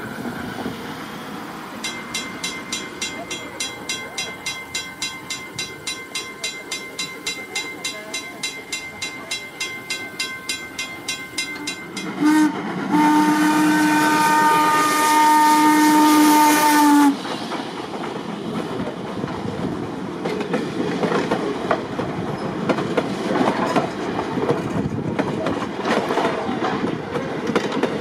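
N&W No. 475, a 4-8-0 steam locomotive, approaching with a quick regular beat of about four strokes a second. Its hooter whistle sounds a short toot and then a long blast of about four seconds as it passes. The engine and passenger coaches then roll by with wheel clatter.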